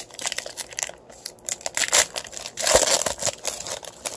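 Plastic wrapper of a trading-card pack crinkling as it is torn open by hand, a quick run of crackles that is thickest and loudest a little under three seconds in.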